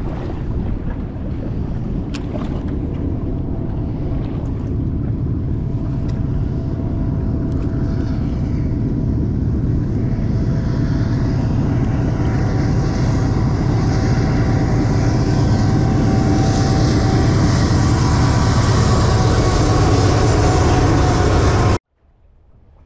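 Train crossing a long railroad trestle, a steady rumble that grows louder, with wind on the microphone. It cuts off abruptly near the end.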